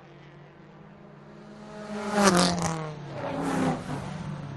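Racing cars passing at speed: two loud pass-bys about a second apart, beginning about two seconds in, the engine pitch dropping as each goes by, over a steady drone of engines.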